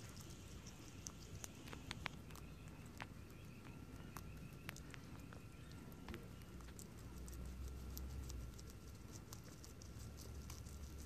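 Guinea pigs chewing leaves: a scattered run of small crisp clicks and crunches. A faint steady high tone lies underneath, and a low rumble swells about two-thirds of the way through.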